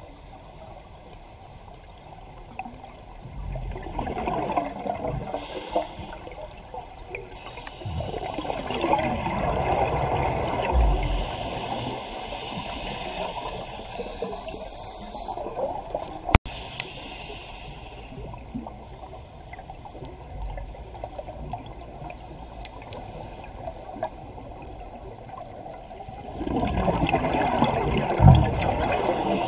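Scuba diver's regulator breathing underwater: hissing inhalations alternating with three long, bubbling rushes of exhaled air. One sharp click about 16 seconds in.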